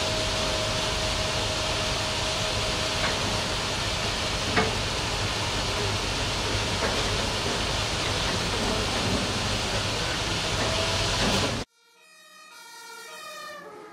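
Steady, loud rushing noise of a large building fire scene with firefighting under way, a thin steady tone through the first half and one sharp crack about four and a half seconds in. It cuts off abruptly near the end, giving way to a short musical jingle of stepped notes that swells in.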